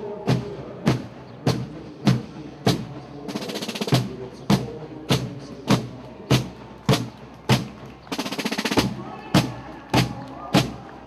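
Marching drums playing a parade cadence: a steady beat about every 0.6 s, with a snare roll twice.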